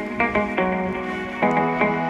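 Background music: an electronic pop track with plucked, guitar-like notes over a steady beat.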